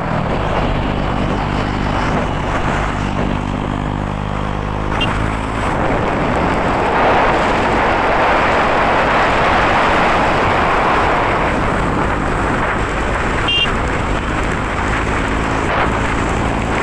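KTM 250 Duke's single-cylinder engine running at a steady pitch while riding, then largely drowned by a loud rush of wind on the microphone for most of the middle, with the engine coming through again near the end.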